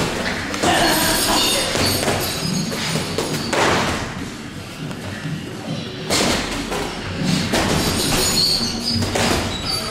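Boxing gloves landing punches during sparring: several dull thuds, the strongest about three and a half and six seconds in.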